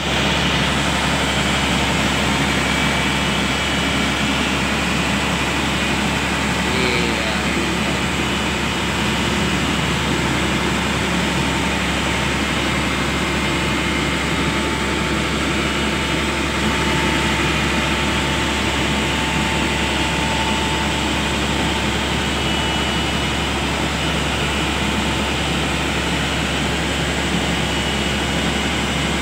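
Engine of a large mobile boat hoist (travel lift) running steadily under power, a loud continuous low hum with no change in speed.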